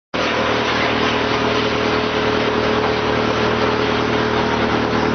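Drum wood chipper running steadily: an even mechanical drone with a constant hum.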